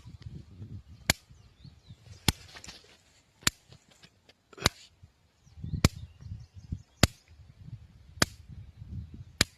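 Sharp snapping clicks at an even pace, about one every 1.2 seconds, over a low rumble. They fit the pulses of a solar-powered electric fence energizer ('solar converter') used to keep cattle off.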